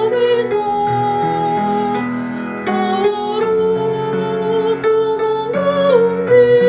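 A slow Catholic hymn in four-part harmony: several voice lines hold steady notes together and step to new chords every second or so.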